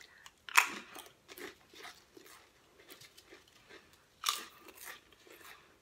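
Pringles potato crisps being bitten and chewed: two loud crunching bites, about half a second and about four seconds in, with quieter chewing crunches between.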